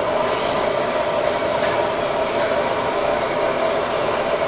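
Steady rushing roar of the fire in a vertical drum oven for roasting suckling pigs, with a faint hum under it and a light metal click about one and a half seconds in.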